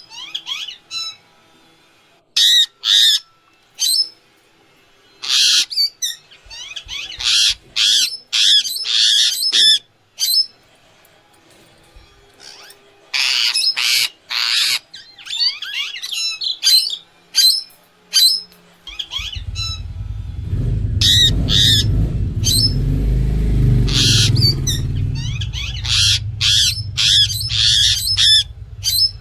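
Indian ringneck parrot giving loud, short, high-pitched calls in rapid clusters, again and again with brief gaps. About two-thirds of the way in, a low rumble begins underneath and carries on.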